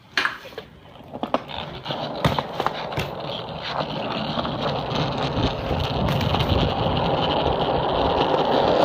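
BMX bike rolling over hard ground: tyre and rolling noise with rattles and knocks, growing steadily louder until it cuts off suddenly at the end.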